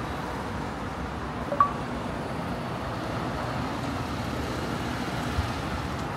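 Steady city street noise with road traffic, and one short high beep about one and a half seconds in.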